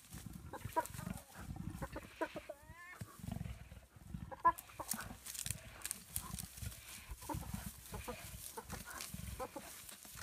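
A spotted hyena and a leopard growling over a kill: repeated bursts of low growling, with short higher calls scattered through and one rising call about two and a half seconds in.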